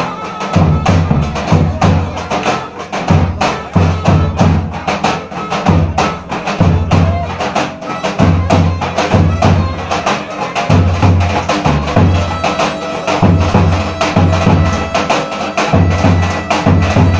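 Loud dance music with a fast, dense run of sharp percussion strokes over a bass that pulses about once a second, played for belly dancers.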